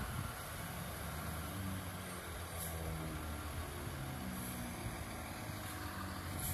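Fire engine's engine idling with a steady low hum.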